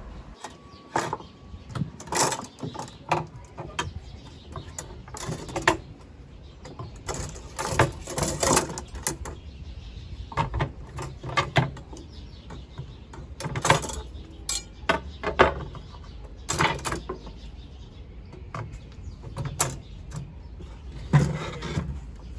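Irregular knocks and clatter of hard objects being handled and set down, in scattered clusters of sharp clicks.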